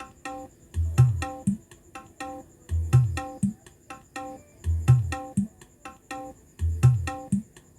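Music with plucked strings and a deep, heavy bass beat in a pattern that repeats about every two seconds, played through loudspeakers driven by a newly built D2K full-bridge Class D power amplifier on a sound test.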